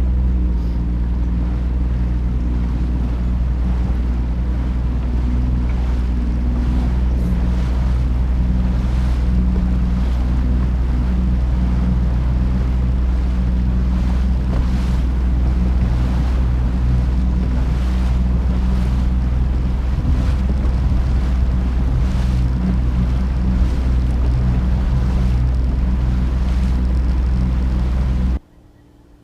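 Fishing boat's motor running steadily under way, with water rushing along the hull and wind on the microphone; the motor noise drops away suddenly near the end.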